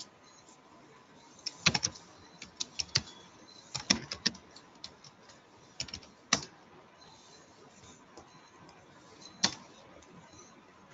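Computer keyboard typing: a few quick runs of keystrokes while a username and password are entered, then a couple of single key or mouse clicks later.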